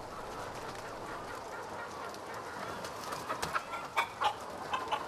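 Hens clucking: a string of short, separate calls starting a little past halfway.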